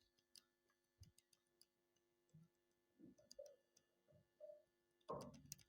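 Faint, irregular 'kat kat' clicking from the worn, five-year-old shuttle (rotary hook) of an industrial sewing machine as its centre post is wiggled by hand; the play in the worn shuttle is what makes the machine noisy.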